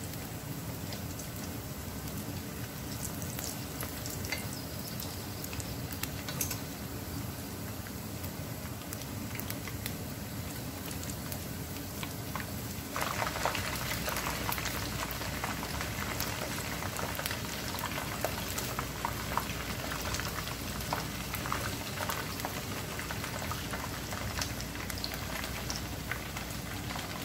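Batter-coated chicken pieces deep-frying in hot oil, sizzling and crackling steadily with scattered pops. About halfway through the crackling becomes abruptly louder and denser.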